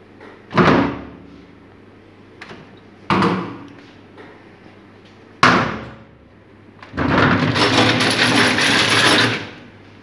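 Plastic dishwasher rack knocked against a stainless steel sink: three sharp knocks about two and a half seconds apart, each ringing off briefly, then a louder hissing rush lasting about two and a half seconds near the end.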